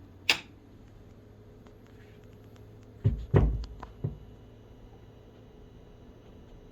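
A sharp click as the pinball machine is switched on, then about three seconds later its audio system pops at startup: a low thump from the subwoofer and a few pops from the two top speakers, a fault this Total Nuclear Annihilation machine has had from new. A faint hum stays on afterwards.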